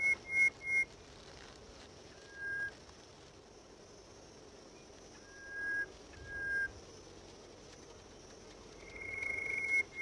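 Clear whistled notes, each held at one steady pitch, over a faint background hiss. A long high note swells up and breaks into two short ones at the start. Three short lower notes come in the middle, and the long high note swells again near the end.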